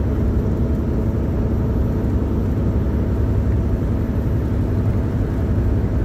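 Volvo VNL860 semi-truck with its D13 diesel driving, heard from inside the cab: a steady low drone of engine and road noise.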